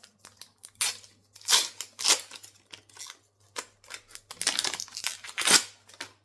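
A Topps football card pack being opened: several short bursts of wrapper noise as the packet is torn and handled, the loudest about five and a half seconds in.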